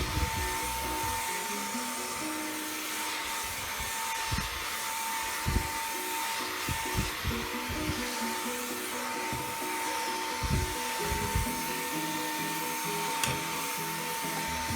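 Xiaomi Mi Handheld 1C cordless stick vacuum running steadily, a constant high whine over a rush of air. Background music with a beat plays along with it.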